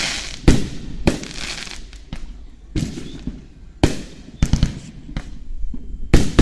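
Aerial fireworks shells bursting in irregular succession: about nine sharp booms, several trailed by a short hissing, crackling shower.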